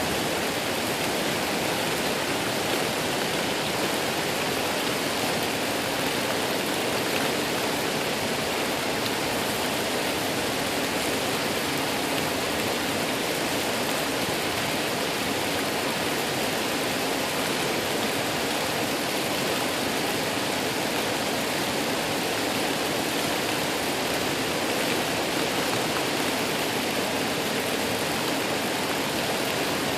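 Waterfall: falling water rushing steadily and unbroken.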